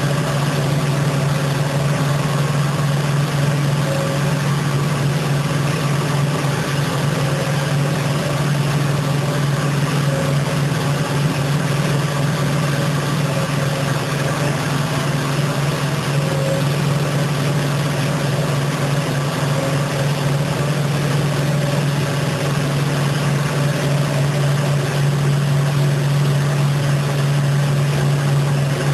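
Automatic carpet-washing machine running, its electric gear motors driving the scrubbing brushes over a wet, foamy carpet: a steady, loud low hum with a few fainter steady tones above it.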